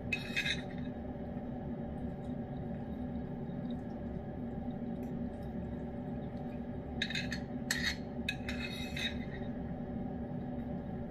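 A spoon scraping and clinking against a food bowl, once right at the start and in a cluster of short strokes about seven to nine seconds in, over a steady electrical hum.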